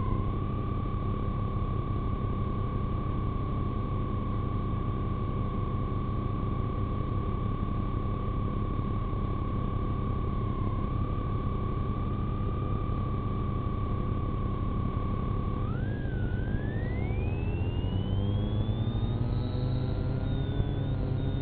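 A steady high-pitched tone over a constant low rumble; about sixteen seconds in, the tone gives way to several tones gliding upward.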